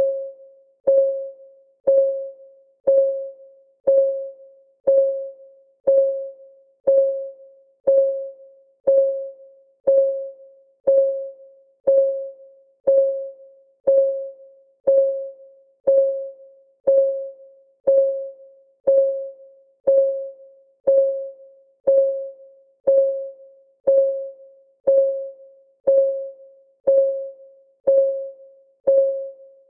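Countdown timer's clock-ticking sound effect: one short, pitched tick every second, each the same and fading away quickly.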